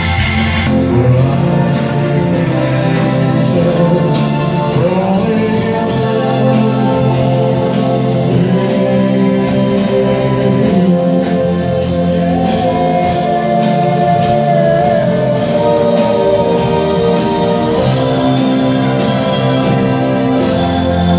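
Live rock-and-roll band playing with a singer drawing out long held notes over it, one high note held for a few seconds near the middle.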